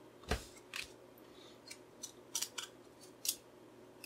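1995 Topps football trading cards being peeled apart and slid off the stack, a handful of short crisp snaps of card stock, the first the loudest. The cards are a little stuck together.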